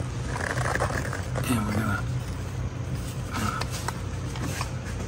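Faint clicks and scrapes of a Ford 5R55S transmission solenoid pack being pressed up into place on the valve body by hand, over a steady low hum.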